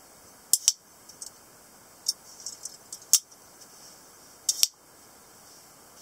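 Sharp metallic clicks of a semiautomatic (assisted-opening) folding knife as its blade and lock are worked: a quick double click about half a second in, single clicks around two and three seconds, another double click near four and a half seconds, with lighter ticks between.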